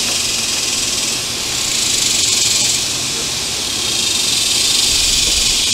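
A loud, steady high-pitched hiss that swells and fades twice, with a brief low rumble near the end.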